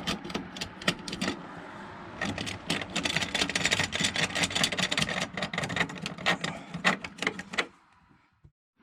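Rapid, irregular clicking and rattling of small hard objects being handled, in dense runs. It cuts off suddenly near the end.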